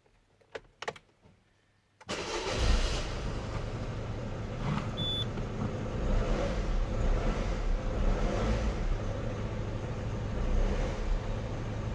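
Peugeot 207's engine started about two seconds in after a few faint clicks, then running steadily at idle. A single short high-pitched beep sounds about five seconds in, the kind of beeping the owner is recording as a problem.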